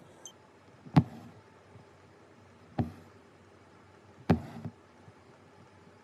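Embroidery needle punching through linen stretched taut in a hoop: three sharp taps, the first and last followed by a brief rasp of cotton floss drawn through.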